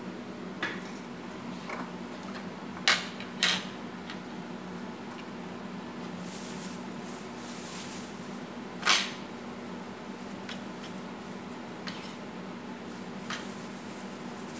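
Dishes being set out on a glass tabletop: a bowl, a plate and a spoon knocked and clinked into place. There are two sharp clinks about 3 seconds in, another about 9 seconds in, and a few lighter taps, over a steady low hum.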